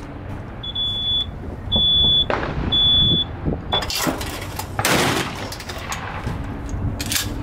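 A high electronic beeper sounds three times, about half a second each, with a short fourth pip. Then come three sharp gunshots over the next few seconds.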